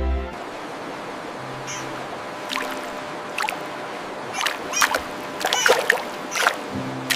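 Water running steadily, with a series of short, sharp splashes in the second half.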